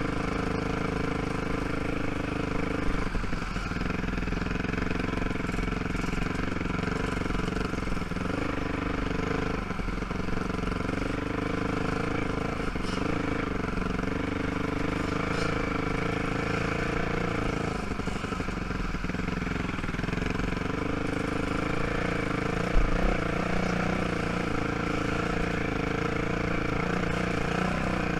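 ATV (quad) engine running steadily at low speed on a slow trail ride, its pitch shifting only slightly, with two brief knocks, one a few seconds in and one later on.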